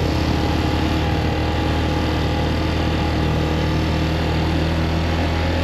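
Motorcycle engine running steadily at an even speed, with a steady hiss over it.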